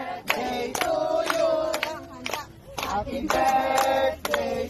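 A group of people singing together in unison while clapping their hands along.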